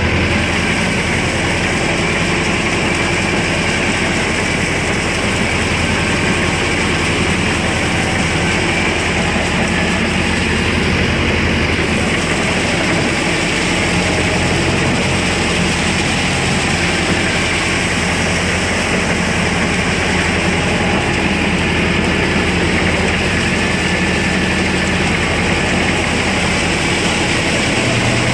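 Mahindra Arjun Novo 605 DI-i 4WD tractor's diesel engine running steadily under load, driving a rotavator whose blades churn through wet paddy-field mud.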